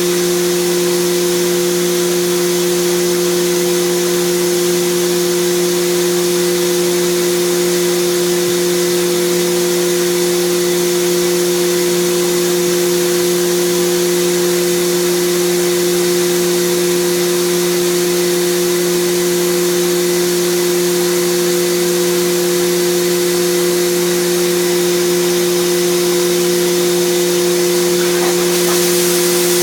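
High-speed CNC milling machine with its spindle turning at 15,000 rpm, milling a pattern with a 0.7 mm ball nose end mill. It makes a steady whine of a few fixed tones over a continuous hiss, the hiss growing slightly brighter near the end.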